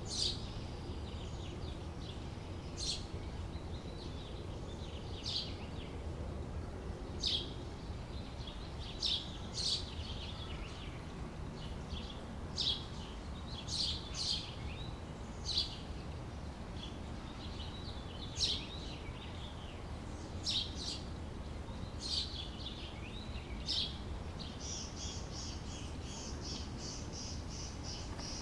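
Outdoor summer ambience: birds giving short, sharp chirps every second or two over a steady low background rumble. Near the end a fast, evenly pulsing high trill starts up.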